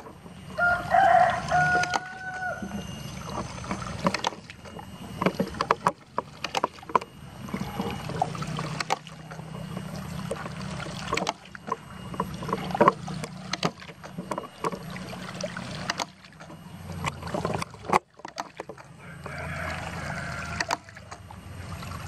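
A rooster crowing about a second in, with a fainter crow near the end, over water running and splashing and scattered irregular knocks and clicks.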